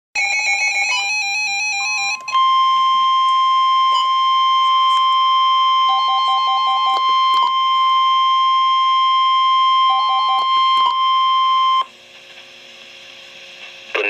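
NOAA weather radio sounding an emergency alert for a Severe Thunderstorm Warning: a couple of seconds of warbling digital header tones, then the steady, piercing 1050 Hz warning alarm tone for about ten seconds, which cuts off sharply. Twice over the tone come short runs of quick, lower beeps.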